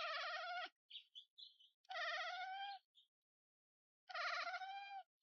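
A cat meowing three times, long drawn-out meows about two seconds apart, with a few short high chirps between the first two.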